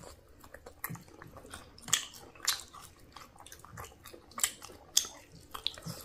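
People eating chicken wings and noodles: chewing and biting, with short sharp mouth clicks and smacks at irregular intervals.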